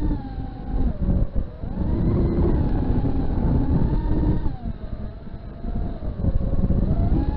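FPV quadcopter's brushless motors whining, the pitch dropping and rising with throttle, over a heavy low rumble.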